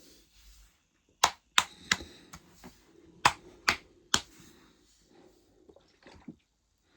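Plastic lemonade bottle crackling in the hand: six sharp cracks in two groups of three, with fainter rustle and a few small ticks between.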